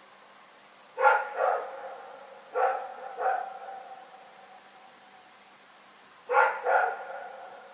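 A dog barking in pairs: two barks about a second in, two more around three seconds, and a third pair near the end.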